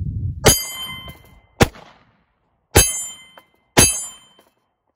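9mm SIG P320 pistol shots into a paper target with an AR500 steel plate behind it, about a second apart. Three of the four hits ring the steel with a clang. The second is a bare shot with no ring: a hit outside the A and C zones that missed the steel. Another ringing hit comes at the very end.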